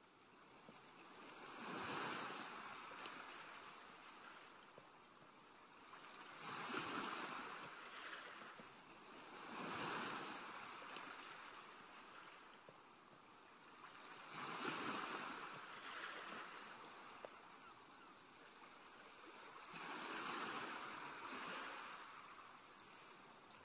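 Soft rushing noise, like waves washing on a shore, that swells and fades five times.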